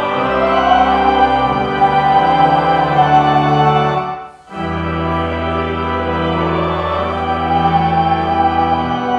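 Church pipe organ playing long held chords over a deep bass, breaking off briefly about four seconds in before the next chord.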